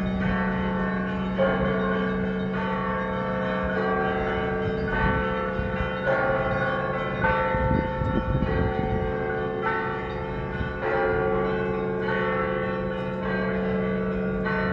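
Russian Orthodox church bells rung in a festive peal: several bells of different pitches struck in turn, a new strike about every second, each left to ring on over the others. A low steady tone sounds under the smaller bells and drops out for a few seconds in the middle.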